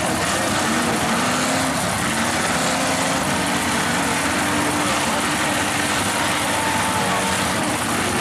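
Engines of mud-racing trucks running hard at high revs as they race through a mud pit, their pitch wandering up and down.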